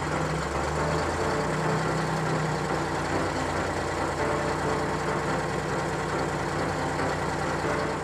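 Truck engine running steadily, a sound effect dubbed over a toy dump truck.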